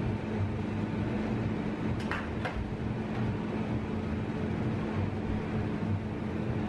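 Steady low machine hum in a workshop, with two light metallic clicks about two seconds in as a sheet-metal repair panel is set against a car wing for a trial fit.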